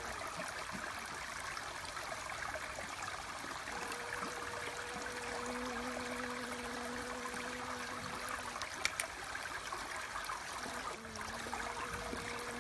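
Steady running water, with a honeybee's low hum coming and going over it, present through the middle and again near the end. A brief sharp click about nine seconds in.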